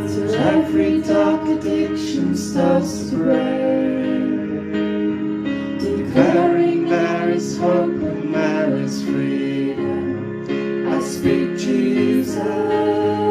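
Live worship song: a woman sings the melody into a microphone over sustained chords from a Roland electronic keyboard.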